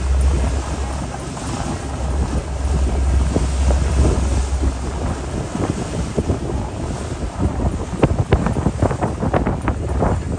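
Wind blowing across the microphone over a steady low rumble and the wash of harbour water. From about eight seconds in the wind turns gusty, buffeting the microphone in quick sharp thumps.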